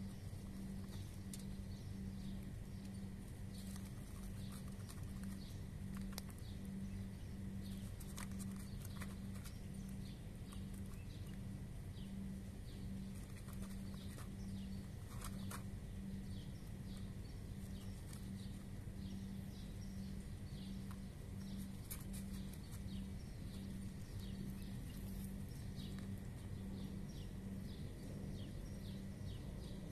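Cats eating dry kibble, with many small irregular crunches, over a steady low hum.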